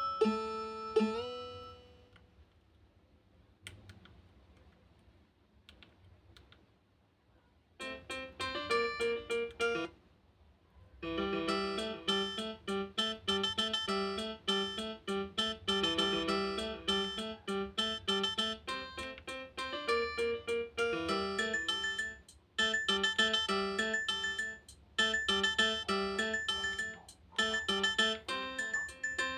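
Nokia 1315 ringtones played through a Nokia 110 phone's speaker. One tune ends in the first second, followed by a quiet gap with a few faint clicks. About eight seconds in, a fast run of electronic keyboard-like notes starts, breaks off briefly, then repeats in a looping pattern.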